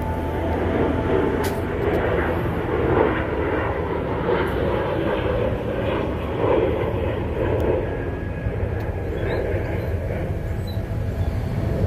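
Steady engine drone with a low rumble underneath, holding level throughout with small swells.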